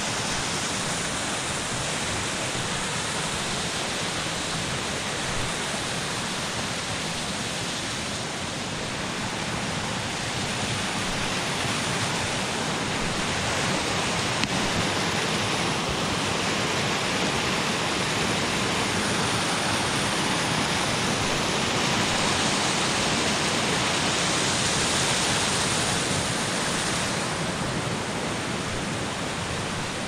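Rain-swollen forest creek rushing over small falls, a steady noise of running water that grows louder about halfway through and eases a little near the end.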